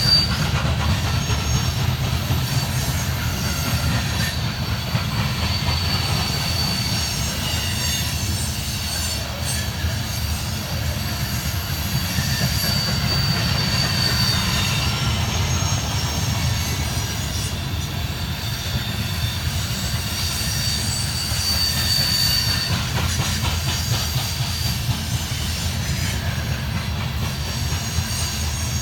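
Coal train's cars rolling past with a steady heavy rumble, and the steel wheels giving a high-pitched squeal on and off against the rails.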